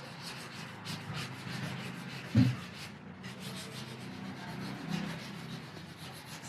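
Guitar frets being levelled: an abrasive leveling beam or file rubbed back and forth along the frets in repeated strokes. A single low knock about two and a half seconds in.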